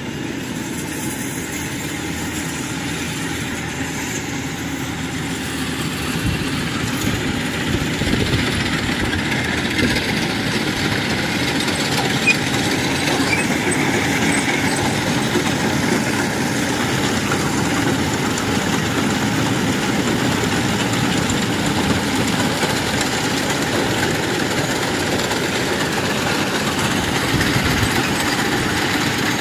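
Kubota 105 rice combine harvester running steadily under load, engine and cutting machinery going together. It grows louder about six to eight seconds in as it comes closer, then holds level.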